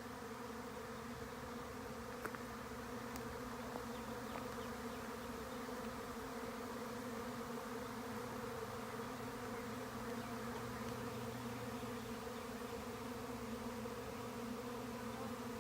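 Swarm of honeybees buzzing in flight, thousands of wingbeats blending into a steady, even hum: a colony that has just swarmed from its hive. A brief tick sounds about two seconds in.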